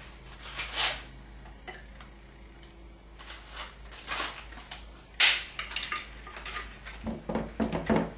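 Dry lasagne sheets clicking and clattering as they are laid into a glass baking dish, in scattered knocks, the loudest about five seconds in.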